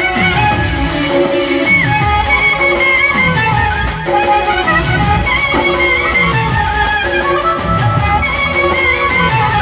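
Live electronic keyboard music from a mobile band: a wavering, ornamented lead melody over chords, with a beat of deep drum hits that drop in pitch about once a second.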